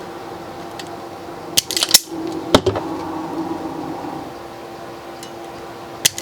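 A steady electrical hum with a few sharp clicks and clatters of objects being handled on the workbench, about one and a half to two and a half seconds in, the loudest a single sharp knock.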